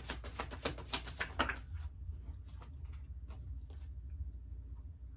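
A deck of tarot cards shuffled by hand: a quick run of soft card slaps and clicks for about the first two seconds, then a few scattered taps as the cards are handled. A low steady hum runs underneath.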